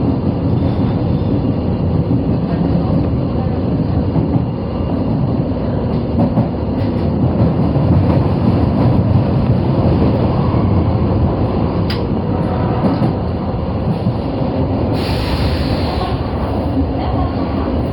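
Osaka Metro 22 series subway train running through a tunnel: a steady rumble of wheels on rail. There is a single click about twelve seconds in and a short hiss lasting about a second near the end.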